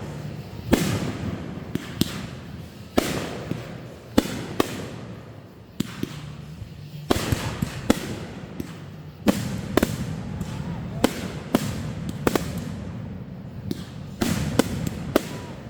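Fireworks going off: a string of sharp bangs at irregular intervals, sometimes several a second. A few of the louder bursts ring on for a second or so.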